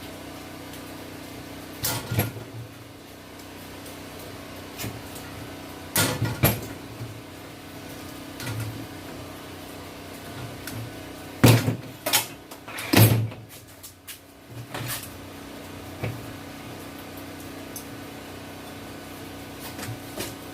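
Scattered sharp metal knocks and clanks of tools and parts as a mini bike is taken apart, loudest in a quick cluster a little past the middle. A steady low hum runs underneath.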